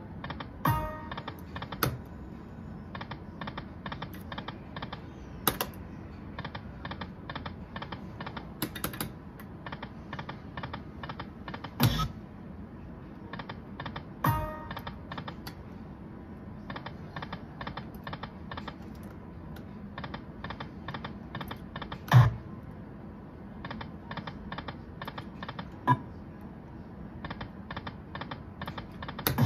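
Aristocrat pokie machine spinning its reels again and again: runs of rapid, even clicking at about four or five ticks a second, broken every few seconds by a louder knock, sometimes with a short electronic chime, as each new spin starts or ends.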